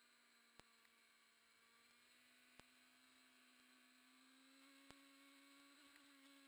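Near silence: no engine or road sound, only a faint steady electrical hum with hiss and three faint clicks.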